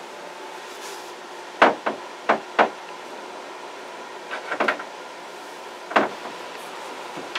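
Sharp, irregular knocks on wood during demolition work: two pairs of blows a couple of seconds in, a quick cluster in the middle, then single strikes later.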